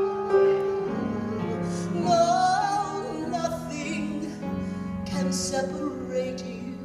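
Live gospel music: a keyboard holds sustained chords while a female soloist sings a drawn-out wordless run with vibrato about two seconds in.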